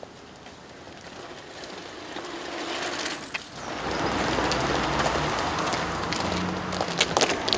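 Street noise with a vehicle passing, then a run of sharp clicks and knocks near the end.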